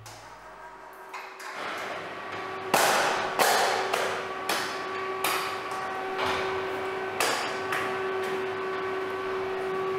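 Butcher's cleaver chopping into a hanging pig carcass: a series of about eight heavy, sharp chops, one every half second to second, starting a few seconds in.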